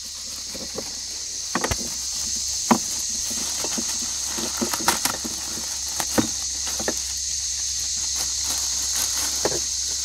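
Plastic bags crinkling and rustling in irregular short crackles as new parts are unwrapped by hand, over a steady high drone of insects.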